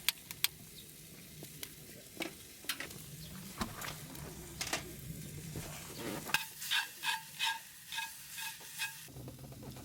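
Food sizzling in a frying pan while it is stirred, with scattered sharp crackles. Near the end comes a run of about six short high chirps, each about half a second apart.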